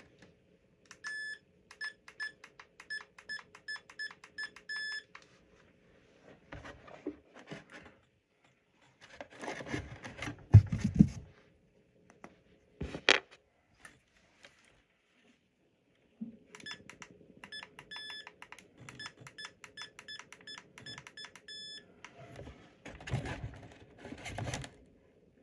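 Two runs of short, evenly repeated high-pitched electronic beeps, about three a second, from the model plane's electronics powered up on the bench. Handling knocks come in the middle and a sharp click follows, over a faint steady electrical hum.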